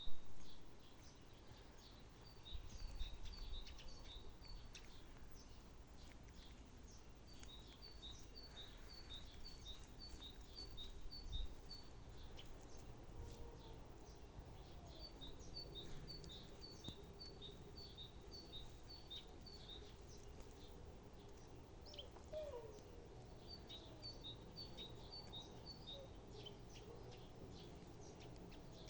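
A songbird singing bouts of quick, evenly spaced high notes, each bout a few seconds long and repeated several times, over faint outdoor background noise. A few low bumps from wind or handling on the microphone, the loudest about three seconds in.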